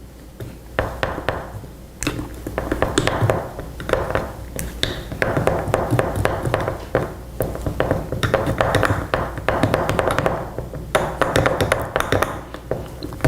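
A teaspoon stirring turmeric into a thick paste of blended herbs and honey, the spoon tapping and clicking against the container over and over.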